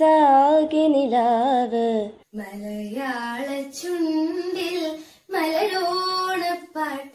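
Solo female voices singing a slow melody in long held notes that waver in pitch, with no accompaniment. The singing breaks off about two seconds in, where a second young woman takes up the song, and pauses briefly again near five seconds.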